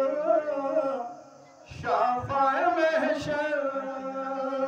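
A man singing a salawat, blessings on the Prophet, unaccompanied in long held notes, with a brief break about a second in before the line resumes.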